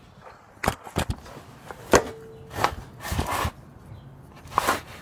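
Handling noises from someone shifting under a car with a camera and tools: a string of short knocks and clicks with scuffing, the loudest knock about two seconds in ringing on briefly like a tool striking metal.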